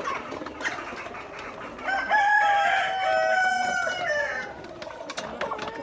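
Australorp rooster crowing once, a long held call of about two and a half seconds starting about two seconds in, over the flock's clucking.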